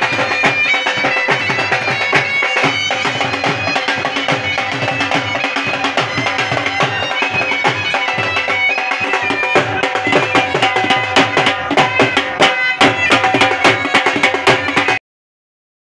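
Bagpipes playing a folk tune over a steady drone, with fast dhol drumming. The music stops abruptly near the end.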